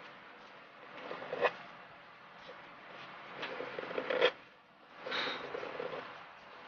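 Metal dip-pen nib scratching across paper in several short strokes while inking lines, with two sharper scratches about a second and a half in and about four seconds in.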